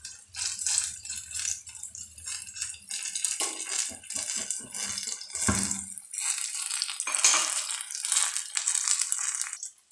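Mustard oil sizzling and crackling around whole garlic cloves, onion and ginger frying in an aluminium kadai, the oil heated through until its froth has gone and the garlic and onion have browned. A spoon knocks in the pan about five and a half seconds in.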